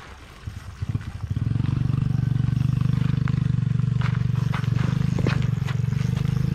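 A small engine running steadily with a low, pulsing hum, starting about a second and a half in, with a few sharp ticks over it.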